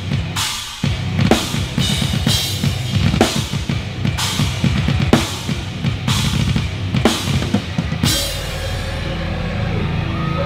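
Deathcore drumming on a full kit: fast, dense bass drum and snare with a crash struck about once a second, over the band's heavy song. About eight seconds in the drum strokes stop and a low held chord rings on.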